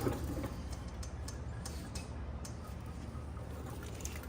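A few light, scattered clicks and ticks of plastic wiring-harness connectors being handled, over a steady low hum.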